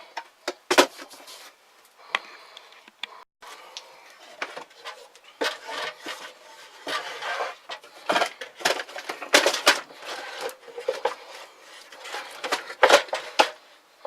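Handling noises from a wooden box trap and its HDPE plastic door latch: irregular knocks, clacks and scraping as the door and latch are worked and tried.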